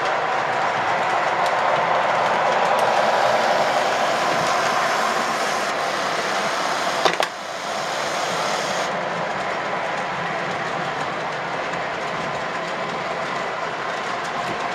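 O gauge model train running on the layout's track: a steady noise of wheels and motor on the rails, with a single sharp click about seven seconds in.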